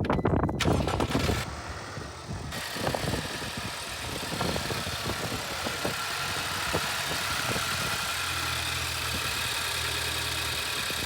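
Land Rover Range Rover engine starting up, then settling into a steady idle. This is the test run after replacing a swollen, wrong-type PCV hose that had been vibrating like a diaphragm and making a noise like a vacuum leak.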